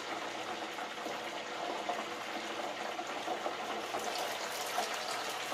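Hot oil sizzling and bubbling steadily in a Hamilton Beach electric deep fryer as onion rings fry. About four seconds in, a few light clicks as the fryer lid is lifted, and the sizzle comes through a little louder.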